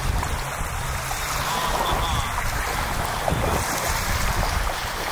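Steady wind buffeting the microphone over the rush and splash of water along a moving boat's hull.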